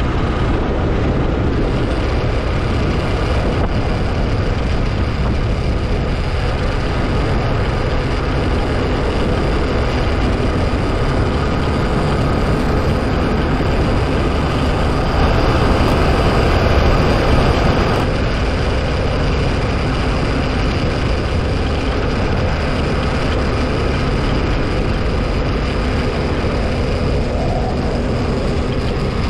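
Steady wind rush and vehicle noise from riding along a road, with a running engine's drone beneath and no distinct events. It gets a little louder about halfway through.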